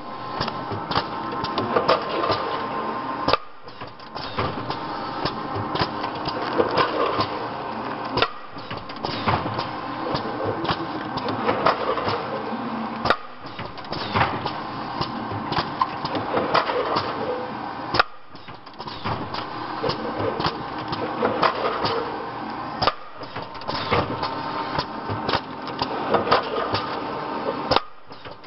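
Automatic doypack pouch packaging machine running: a steady hum under rapid clicks and knocks from its mechanism, dipping briefly about every five seconds as each cycle repeats.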